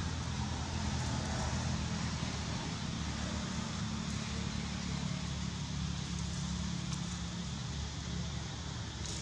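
Steady outdoor background noise: a low rumble with an even hiss over it, and no distinct calls or knocks.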